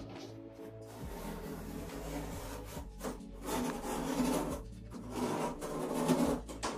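Utility knife scraping and cutting into gypsum board along an aluminium straightedge, in repeated strokes that are loudest around the middle and again near the end.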